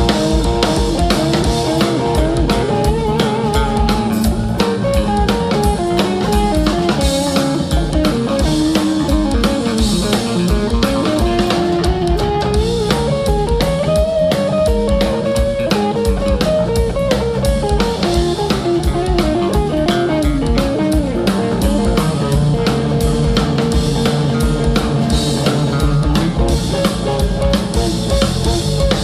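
Live band playing an instrumental passage: electric guitar and bass guitar over a drum kit, with a moving melodic line and a steady beat.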